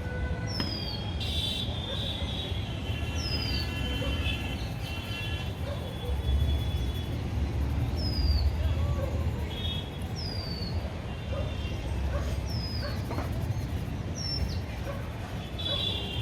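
A bird's short, high, falling whistle call, repeated about every second or two, over a steady low rumble.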